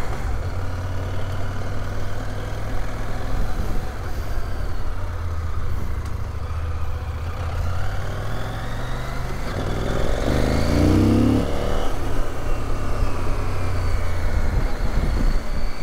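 2023 CFMoto 800MT Explore's parallel-twin engine running on the road, rising in pitch about ten seconds in as it accelerates.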